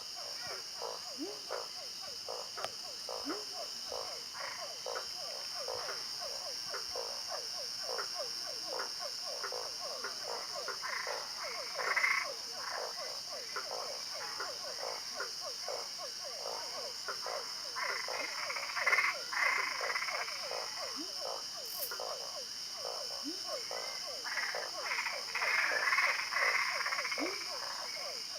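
Chorus of many frogs croaking, their short calls overlapping densely, with louder clusters swelling up every several seconds. A steady high-pitched hum runs underneath.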